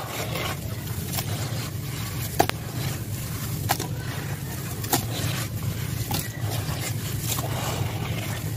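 Hands scraping and squeezing through wet, gritty sand-and-cement crumble in a plastic tub: a continuous grainy rasp broken by sharp clicks of grit about once a second, over a steady low rumble.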